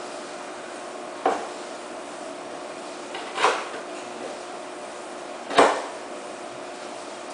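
Kitchen knife striking a wooden cutting board while cutting onion and garlic: three separate knocks about two seconds apart, the last the loudest, over a steady background hum.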